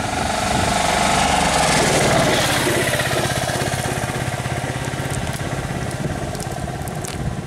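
A small engine running steadily with a fast, even pulse. It grows louder about a second in, then eases slightly and keeps running.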